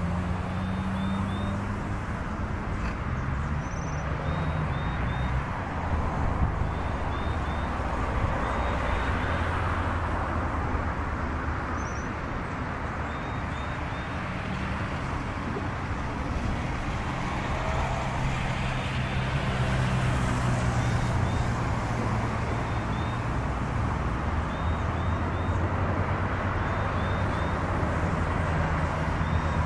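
Steady road traffic with a low engine hum, while a small bird's faint triple chirps repeat every second or two above it.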